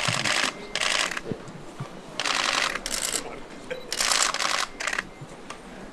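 Camera shutters firing in rapid continuous bursts, six bursts each lasting under a second.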